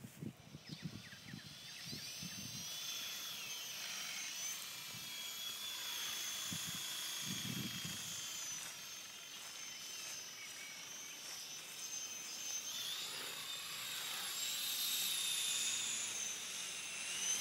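Small electric motors and twin rotors of an E-sky co-axial RC helicopter whining as they spin up in the first couple of seconds. The pitch then drifts up and down with the throttle.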